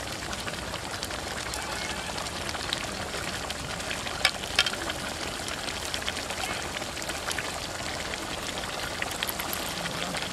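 Stingray curry simmering in a large iron kadai over a wood fire: a steady sizzling, bubbling hiss, with a few sharp crackles, the loudest two about four seconds in.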